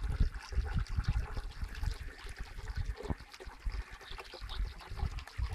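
Small, shallow woodland stream at low flow trickling and babbling over stones, a fine patter of small water sounds. Irregular low rumbles come and go over it and are the loudest part.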